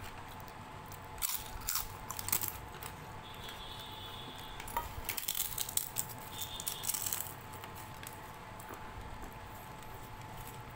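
Crisp fried papad crackling as it is broken and crumbled by hand, in two bursts: a short one about a second in and a longer one from about five to seven seconds.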